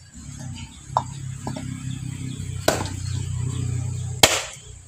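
Firewood being split by hand: two sharp strikes of a chopping blade into wood about a second and a half apart, the second the louder, with a couple of lighter knocks before them. A low steady hum runs underneath and stops at the second strike.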